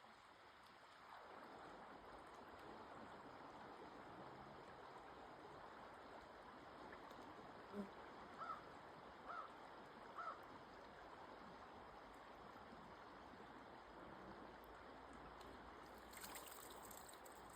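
Faint, steady rush of flowing stream water, with four short high chirps in quick succession about halfway through.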